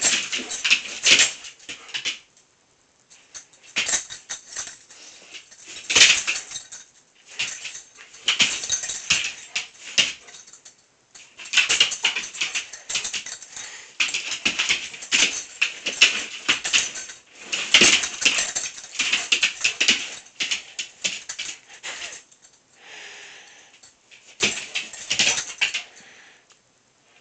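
A dog's claws clicking and scrabbling on a hard kitchen floor as it dashes, skids and turns chasing a laser dot, in rapid bursts of clicks with short pauses between them.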